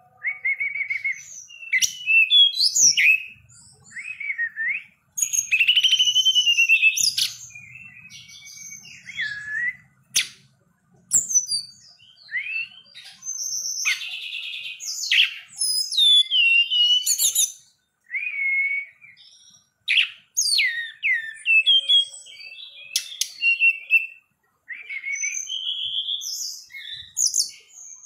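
Caged male tledekan gunung (hill blue flycatcher) singing at length: a varied run of clear whistled phrases that glide up and down, with a few rapid trills, broken by short pauses.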